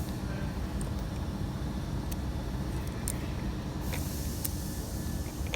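Steady low mechanical rumble, like an engine running, with a few faint light clicks.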